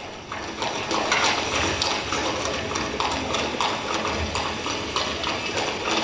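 Recorded horse hooves clip-clopping in an even rhythm, a sound effect played as the stage carriage is drawn on. It starts about a third of a second in.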